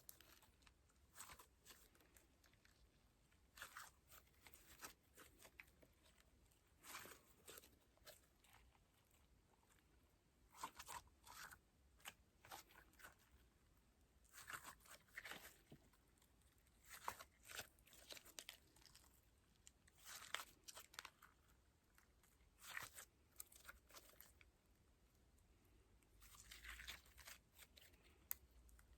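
Slime being squeezed and pulled apart by hand: quiet clusters of sticky crackles and pops, coming every second or two.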